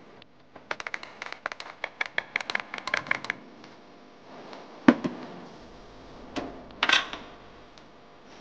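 Metal teaspoon stirring coffee in a glass mug, clinking rapidly against the glass for about three seconds. Then a loud knock about five seconds in, and a ringing metallic clatter about seven seconds in as a tin lid is set down on the countertop.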